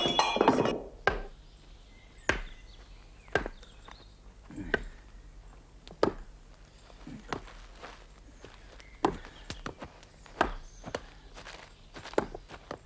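A loud burst of noise in the first second, then sharp wooden knocks and thuds at irregular intervals of about a second, from men handling logs on a forest floor.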